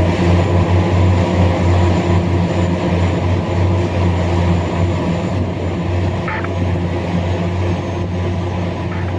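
Heavy mining machinery's large diesel engine running steadily with a deep hum, easing slightly in level. A short high-pitched sound comes about six seconds in.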